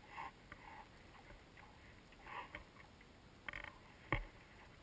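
Quiet sounds of a small boat on choppy water: faint splashes of water against the hull, with two light sharp knocks near the end.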